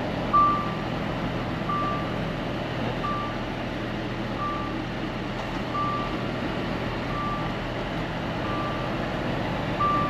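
Reversing alarm of a Volvo FH truck beeping evenly, one short high beep about every second and a third, while the truck backs onto a loading dock. The diesel engine's low steady drone runs underneath, heard from inside the cab.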